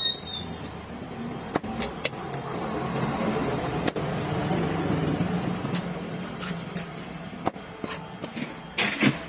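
Several sharp knocks of a large knife chopping through fish onto a wooden block, the loudest near the end, over a low motor-vehicle rumble that swells in the middle and fades.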